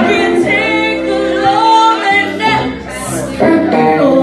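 Live blues band: a woman singing a held, gliding vocal line over guitar accompaniment.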